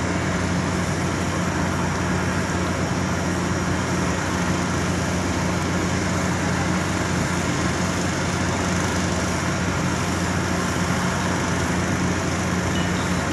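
Steady roar of distant road traffic with a constant low hum underneath.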